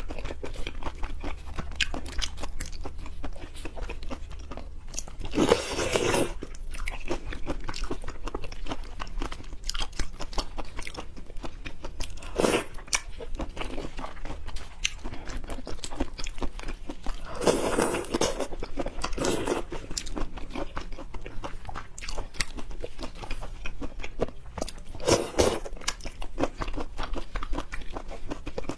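Close-miked eating of seafood: steady wet chewing and biting clicks, with a few louder bursts spaced several seconds apart.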